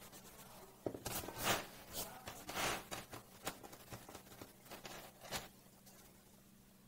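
Pencil strokes scratching across sketchbook paper, an irregular series of short faint scratches of varying length.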